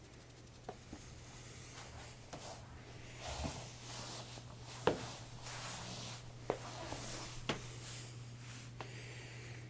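A cat playing: rustling and scratching with a few sharp light taps, over a steady low hum.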